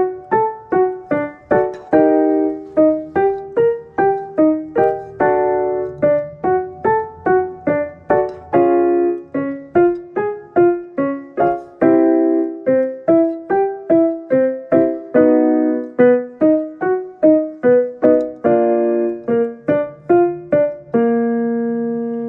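Piano playing a run of short struck notes and chords, about two to three a second, as a vocal-exercise accompaniment, ending on a held chord near the end.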